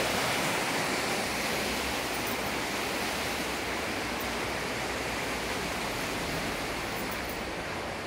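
Waterfall and stream water rushing: a steady, even hiss that slowly grows a little quieter.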